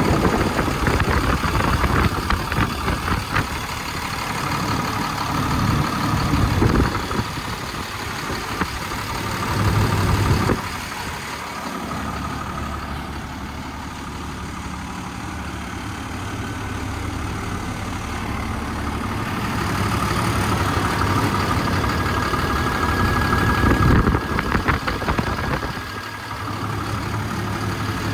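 Cummins 5.9 ISB inline-six turbo-diesel truck engine running at idle, its note and loudness shifting several times, with a clear drop about ten seconds in.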